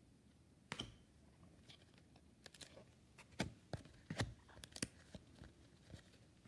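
Trading cards being leafed through by hand: a string of irregular sharp clicks and snaps as cards are slid off the stack one after another.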